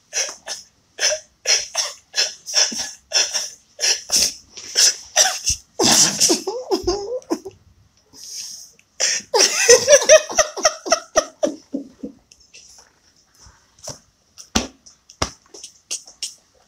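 Men laughing hard: short breathy bursts of laughter about twice a second, then longer laughing cries that rise and fall in pitch around six and ten seconds in, dying down to scattered short bursts near the end.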